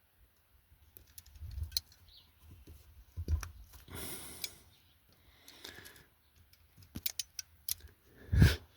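Hands working amplifier wires with a knife: scattered small clicks and scraping, with a short rasp about four seconds in and a louder thump near the end.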